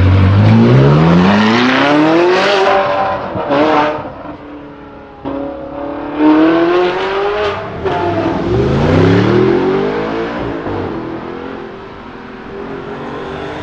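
Jaguar F-Type V8 R's supercharged 5.0-litre V8 accelerating hard, rising in pitch through several gears with brief exhaust crackles around the shifts, then fading as the car pulls away.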